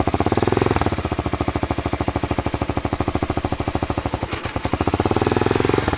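Sport motorcycle engine idling, a steady fast pulsing beat, swelling slightly about half a second in and again near the end.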